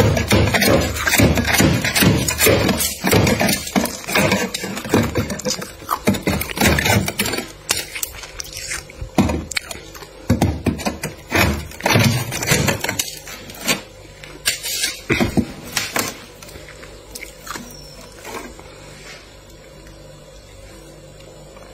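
Thick freezer frost being scraped off the freezer wall with a wooden-handled knife: a fast run of irregular scraping strokes that stops about sixteen seconds in.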